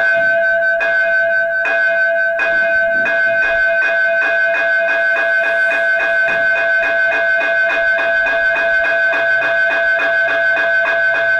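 Long electronic bell tone from an automatic school bell controller, played through an Ahuja amplifier and horn speaker. It is a loud, steady ring of two held tones with a quick repeated striking, about four strikes a second.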